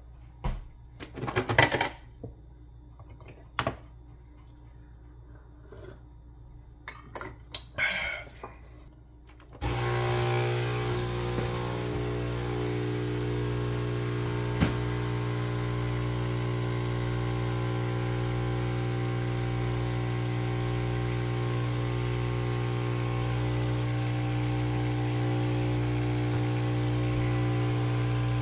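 A few clicks and knocks as a capsule espresso machine is handled, then, about a third of the way in, its pump starts with a loud, steady hum as it brews coffee into the cup.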